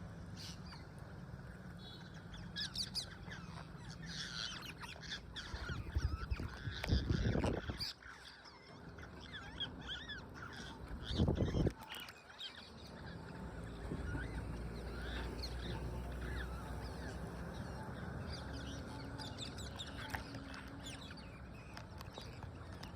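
Parrots calling with repeated short chirps and harsh squawks. Two brief low rumbles break in about seven and eleven seconds in.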